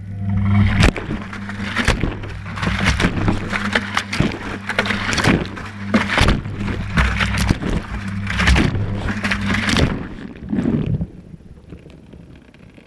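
Whirlpool Indiana 1400 washing machine drum turning during the wash, heard from inside the drum: a steady motor hum under water and laundry sloshing, with frequent knocks. It starts suddenly, and the hum stops about ten seconds in as the drum pauses, the sloshing dying out a moment later.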